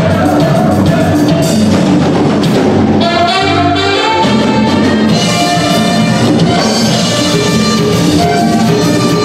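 Mexican dance-band music: a horn melody over a steady bass and drum beat.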